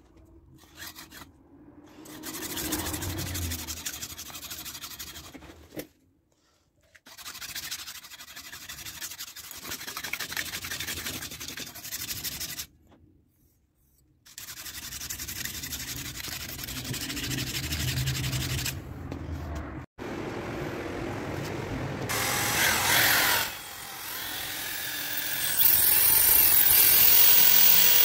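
Steel knife blank held in locking pliers and ground against a bench grinding wheel: a rasping grind in several passes, broken by short pauses. Near the end comes a louder, higher-pitched grinding as a handheld rotary tool cuts into the blade.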